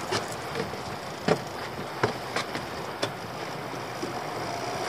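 Steady wind and water noise around a small open boat at sea, with a handful of short, sharp clicks and knocks from fishing tackle being handled on board.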